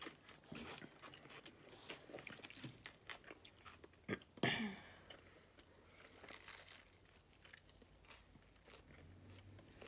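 Close-miked chewing and crunching of Chinese takeout food, with wet mouth clicks and smacks and a louder smack about four seconds in.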